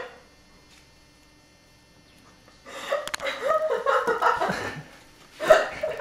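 A person's voice making sounds with no clear words for about two seconds, starting a little under halfway through after a quiet stretch, then one short loud vocal burst near the end.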